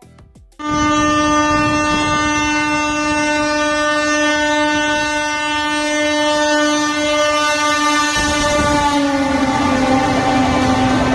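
WAP-7 electric locomotive's horn sounding in one long continuous blast, starting just under a second in. About nine seconds in its pitch drops slightly as the locomotive passes, and the rumble of coaches rolling by rises beneath it.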